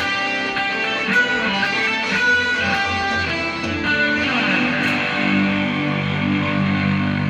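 Stratocaster-style electric guitar played solo: a run of single picked notes, then from about four seconds in, lower notes and chords left ringing.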